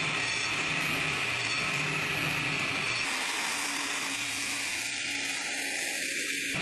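Steady, continuous whir of a running machine with a faint low hum; it does not change in level.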